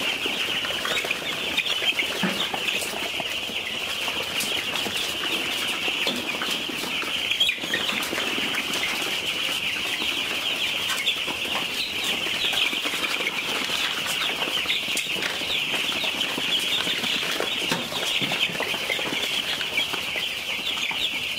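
A large flock of ten-day-old chicks peeping all together in a dense, steady chorus.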